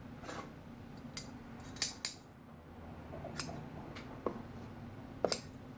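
Small scissors snipping, about six short sharp cuts spread out with a close pair about two seconds in, trimming cotton wick.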